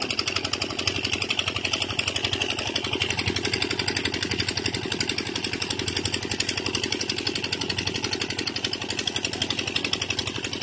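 Tubewell pump engine running steadily, with a fast, even beat.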